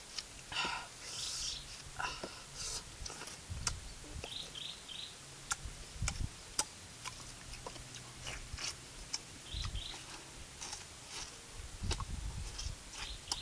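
A large knife scraping and cutting the rind of a green citrus fruit with sharp clicks, then biting into and chewing the juicy fruit. A bird chirps in short runs of three quick notes a few times.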